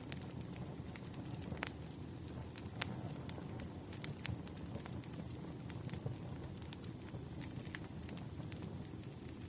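Wood fire burning: a steady low rumble of flames with irregular sharp crackles and pops from the burning logs.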